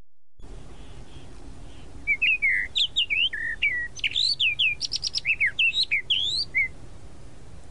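Tropical mockingbird (Mimus gilvus) singing. About two seconds in comes a quick string of varied short notes that slide up and down, including a run of rapid falling strokes, lasting about four and a half seconds over a steady background hiss.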